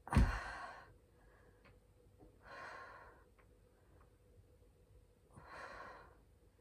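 A person breathing out heavily while holding a headstand: three long, breathy exhalations about every two and a half to three seconds. The first is the loudest and starts with a low bump.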